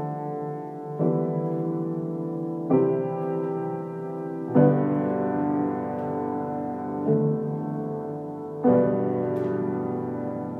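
Background music: slow, sustained piano chords, a new chord struck about every two seconds.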